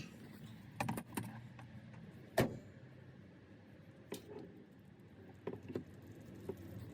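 Scattered light knocks and clicks, the loudest about two and a half seconds in, from tools and hands working at a stuck, overtightened oil filter.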